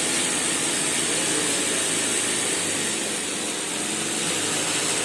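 Steady mechanical running noise with a constant hiss, like machinery or a fan running without a break.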